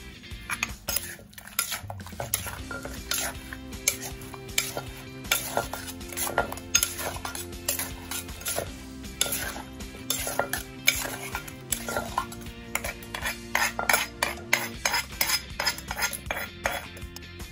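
Wooden pestle knocking in a Thai clay mortar and a metal spoon scraping and clinking against its sides as omelette, basil and tomatoes are pounded and tossed together. The knocks come irregularly, several a second.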